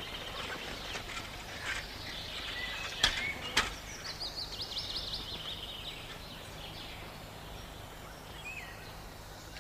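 Small birds chirping, with a rapid trill of quick repeated notes about four seconds in. Two sharp clicks about half a second apart around three seconds in stand out as the loudest sounds, over a steady low hum.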